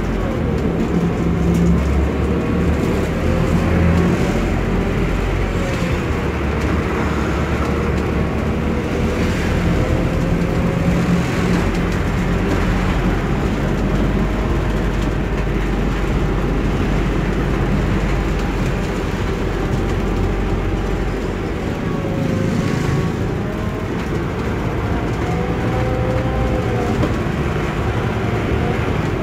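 Cabin noise of a Scania K280UB city bus running on compressed natural gas, under way: a steady drone of engine and road noise, with a faint whine that rises and falls.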